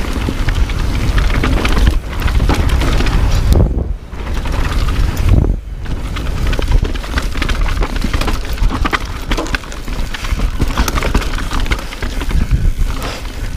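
Mountain bike descending a dirt trail at speed: wind rumbling on the microphone over a dense clatter of tyres on dirt and rock and the bike rattling. The noise drops out briefly twice, about four and six seconds in.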